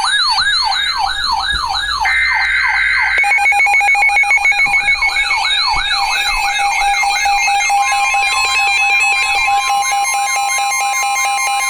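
Electronic emergency alert tones: a siren-like tone sweeping up and down about three times a second, joined about two seconds in by a steady tone burst and then by fast pulsing alarm beeps. A steady pitched tone comes in about two-thirds of the way through.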